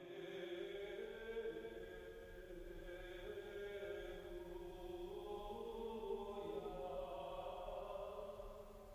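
A slow vocal chant: voices hold long notes that change pitch gradually, without breaks.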